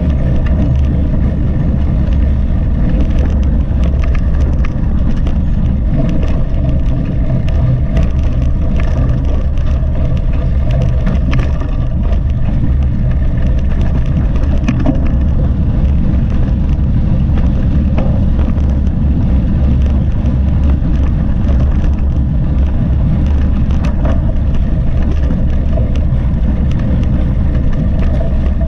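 Mountain bike ridden over rough ground, heard from a bike- or rider-mounted GoPro: a heavy steady rumble of wind on the microphone and tyres on the trail, with many small rattles and clicks from the bike.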